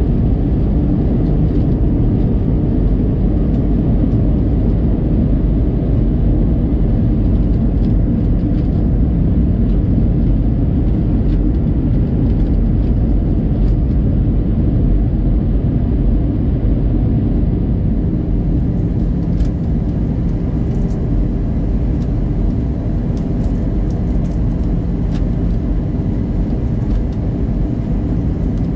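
Steady in-flight cabin noise inside an Airbus A320-200: a loud low rush of airflow and engine drone with a faint hum. Light ticks and rattles appear faintly over it in the second half.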